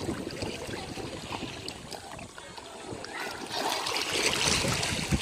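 Ocean waves washing onto the shore, a splashing hiss that swells louder about three and a half seconds in as a wave breaks and runs up.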